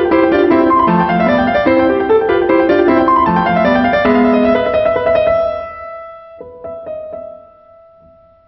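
Background piano music: a busy run of notes that thins out and fades about five seconds in, leaving a few quieter held notes.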